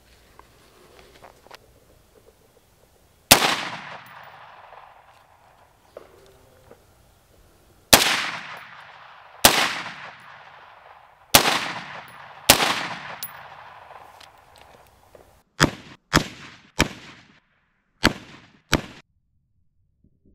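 Semi-automatic CMMG AR-15 MK4 rifle firing 62-grain 5.56 rounds: about ten single shots. The first five come one to four seconds apart, each trailing off in a long echo. The last five come quicker and are cut short, with no long tail.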